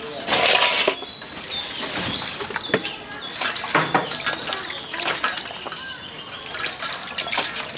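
Water poured with a rush into a steel bowl about half a second in, then splashing and sloshing as hands wash and rub the cleaned climbing perch fish in the water, with small knocks against the metal. Birds chirp faintly in the background.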